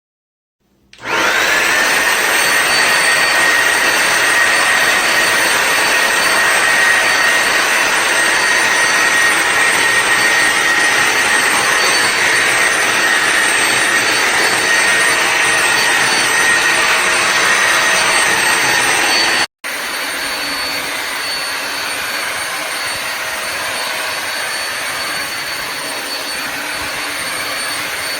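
Vacuum motor of a Bissell Symphony Pet steam mop and vacuum switching on, whining up to speed within about a second, then running steadily with a high whine over a rush of air. It cuts out for an instant about two-thirds of the way through and carries on slightly quieter.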